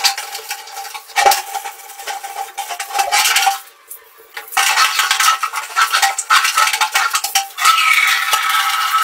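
Scrub brush scraping over a wet plastic bucket and tile floor in quick, scratchy strokes, with a short pause about four seconds in.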